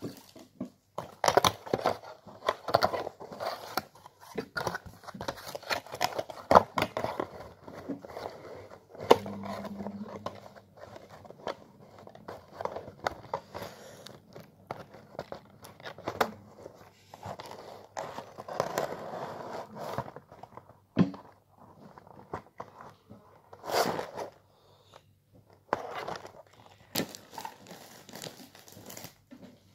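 Chocolate packaging handled close to the microphone, crinkling and rustling in irregular bursts with scattered sharp clicks.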